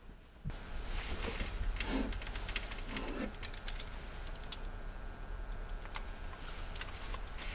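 Scattered plastic clicks and rustling of a small handheld video camera being handled and set up on a shelf.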